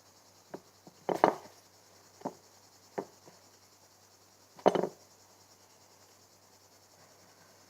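Handling noise from a home slime-making session: a few scattered knocks and taps of things being moved and set down, the loudest just over a second in and near the middle, over a faint steady hiss.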